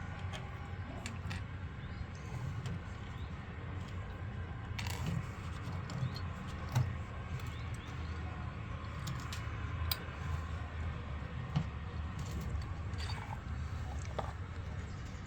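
Washing machine running: a steady low hum with scattered clicks and light knocks.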